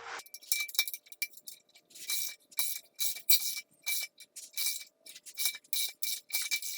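Hand socket ratchet clicking in quick repeated strokes, about two a second, as a bolt is backed out.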